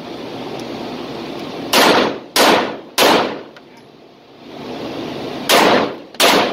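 Arex Rex Alpha 9mm pistol fired one-handed five times. Three quick shots come about half a second apart, then after a pause of about two and a half seconds two more, each with a short echoing ring.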